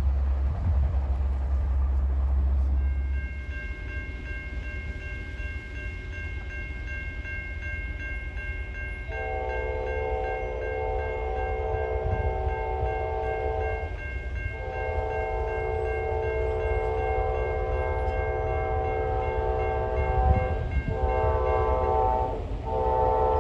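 Locomotive air horn blowing the grade-crossing signal: two long blasts, a short one and another long one, starting about nine seconds in. A deep rumble sits beneath it, and a steady high ringing tone begins about three seconds in.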